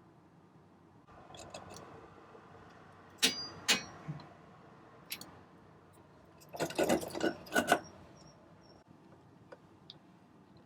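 Hand tools and metal parts clinking and knocking during reassembly work: two sharp, ringing clinks about three seconds in, then a quick cluster of clicks and knocks around seven seconds.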